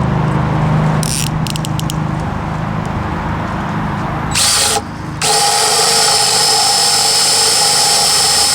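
Hart 20-volt brushed cordless drill's motor briefly triggered, then from about five seconds running steadily at high speed with an even whine. A low rumble and a few quick clicks come before it.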